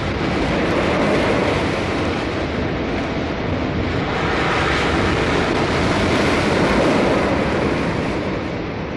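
Ocean surf: waves breaking and washing ashore in a steady rush that swells twice, loudest about a second in and again near seven seconds.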